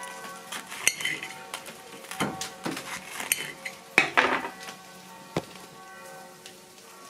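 Metal fork clinking and scraping on a porcelain plate while a grilled sausage is cut apart with it. There are several sharp clinks spread over the first five seconds, the loudest about four seconds in.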